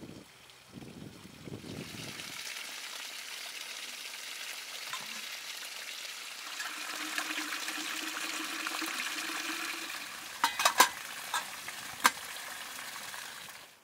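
A cleaver chopping minced meat on a wooden log block for the first couple of seconds, then spring water splashing steadily over rocks as a metal samovar is filled. Near the end, a few sharp metal clinks as the samovar is handled.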